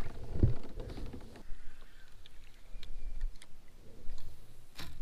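Handling noise in a plastic kayak: a low thud about half a second in, scattered light clicks and knocks, and a sharp click near the end.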